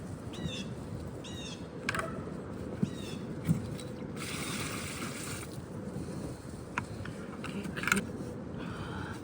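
Outdoor yard-work sounds: a few sharp knocks and clatters and a brief scraping rush a little past four seconds in, with short bird chirps near the start and again near the end.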